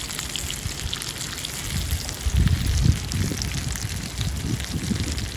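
Hot oil sizzling and popping in a frying pan around a whole pan-fried brown trout, a fine crackle of many small pops. Low rumbles come and go under it, loudest about two to three seconds in.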